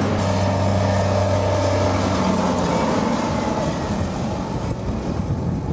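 Diesel engine of a Stryker eight-wheeled armored vehicle running as it drives past. It is a steady low drone that turns into a rougher rumble after about three seconds.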